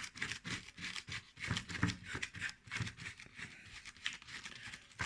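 Rustling and crinkling of packaging being handled: a run of quick, uneven crackles and small taps.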